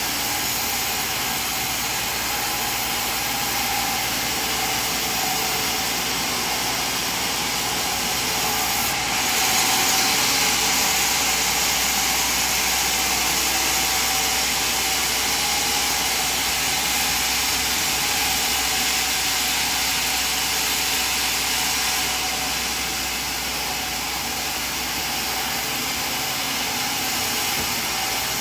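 Sawmill machinery running: a steady mechanical noise with one constant tone through it, growing louder and brighter about nine seconds in and easing back about twenty-two seconds in.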